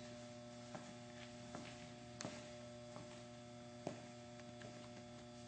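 Faint steady electrical hum with a few soft scattered ticks.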